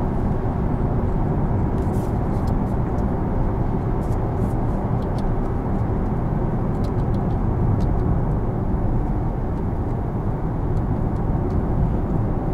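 Steady road and tyre noise inside a Porsche Taycan Turbo S cruising on a wet road: an even low rumble and hiss with no engine note, and a few faint ticks now and then.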